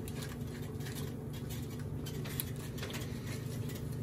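A silicone spatula stirring thick gravy in a nonstick pot: faint scraping and soft scattered clicks over a steady low hum.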